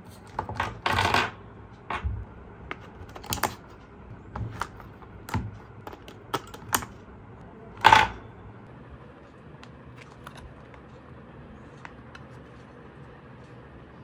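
AA batteries clicking and clattering as they are handled and pressed against the spring contacts of a plastic toy car's battery compartment. There are a dozen or so short irregular clicks and rattles, the loudest near eight seconds in, then only a few faint ticks.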